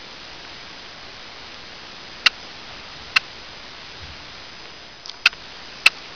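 Four sharp, unevenly spaced clicks over a steady hiss, each ringing briefly, two a little after two and three seconds in and two more near the end.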